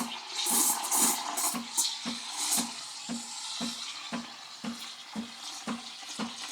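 Espresso machine steam wand frothing milk in a pitcher: a hiss that is stronger in the first couple of seconds and then eases, over a pump pulsing about twice a second.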